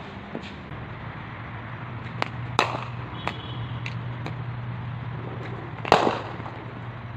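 Cricket bat striking the ball in practice nets: a sharp crack about two and a half seconds in, with a lighter click just before it, and a louder crack near six seconds, each followed by a brief rush of noise. A steady low hum runs underneath.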